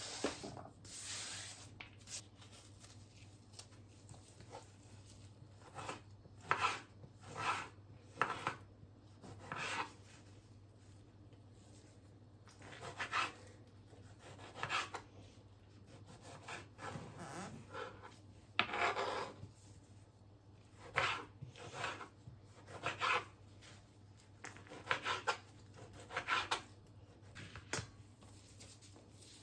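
Irregular short rubbing and scraping strokes from hands at household work, about twenty over the stretch and unevenly spaced, over a steady low hum.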